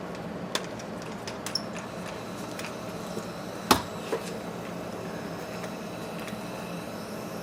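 Steady background hum with a few light clicks and one sharper knock about halfway through, from tools and parts being handled at a workbench.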